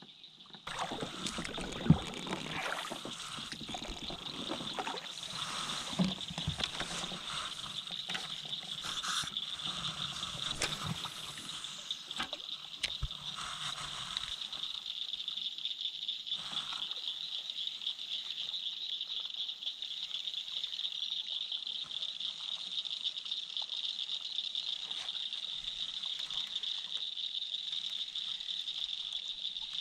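Fishing gear being handled aboard a plastic kayak: scattered knocks and clicks from the soft-plastic rig, rod and spinning reel, thinning out after about fourteen seconds. Under it runs a steady high-pitched hiss.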